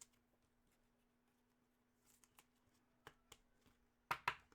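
Near silence broken by trading cards being handled: a few soft clicks and taps about three seconds in, then two sharper card taps near the end.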